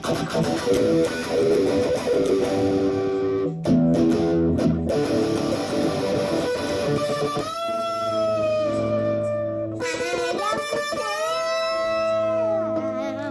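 Rock music led by electric guitar: busy chords at first, then from about halfway a melody of long held notes that bend and waver.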